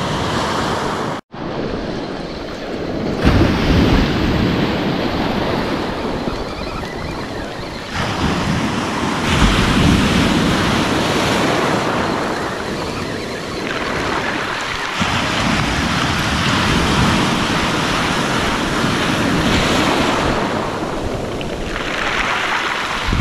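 Baltic Sea surf breaking and washing up a beach, swelling and ebbing every few seconds, with wind buffeting the microphone. The sound cuts out briefly about a second in.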